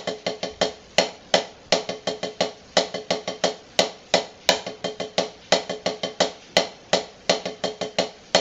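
Snare drum played with sticks in a repeating rudiment: two 5-stroke rolls followed by two single strokes, the pattern cycling about every two seconds.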